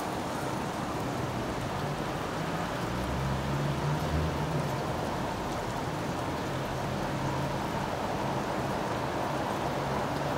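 Steady hiss of outdoor street ambience, with a low engine hum that swells and fades about three to five seconds in.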